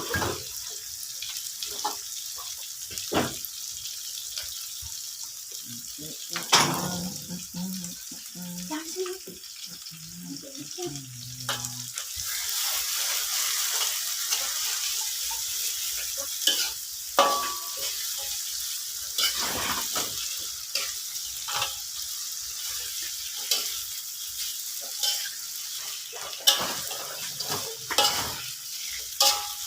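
Snakehead fish frying in hot oil in a pan, a steady sizzle that grows louder about twelve seconds in, with repeated knocks and scrapes of a utensil against the pan.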